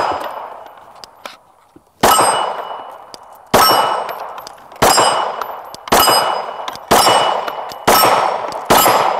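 Glock 19 Gen 5 9mm pistol firing seven shots at steel plates, the shots coming a little quicker as the string goes on. Each shot is followed by the ringing of a hit steel plate.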